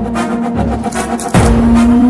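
Dramatic film-score music: a held low note that slowly rises in pitch over deep drum rumbles, with a heavy hit about one and a half seconds in.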